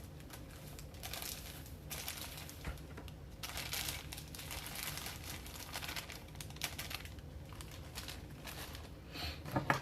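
Plastic packaging crinkling and rustling in uneven spells, as when a bag of cake mix is torn open and emptied into a mixing bowl.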